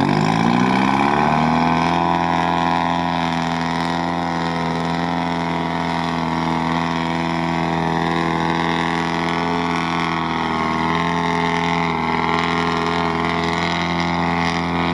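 GAZ-63 truck's engine revving up over about the first two seconds, then held at steady high revs as the truck churns slowly through deep bog mud under load.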